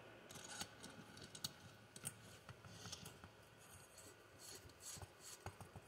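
Faint metallic clicks and light scrapes of a nut driver turning a nut onto a nitro engine's threaded crankshaft to hold the flywheel.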